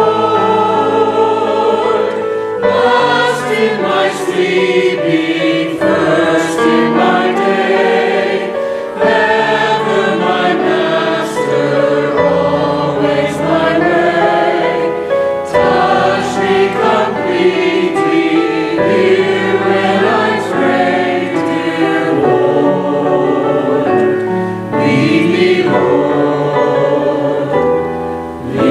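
A choir singing a hymn in harmony, several voices holding and moving chords together, with sung words throughout.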